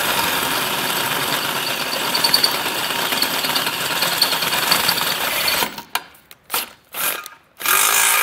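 Cordless drill boring out a hole in a Jeep Wrangler's steel frame rail: a steady grinding of the bit cutting metal. It stops about six seconds in, followed by two brief blips of the trigger and a final second-long whir of the drill spinning.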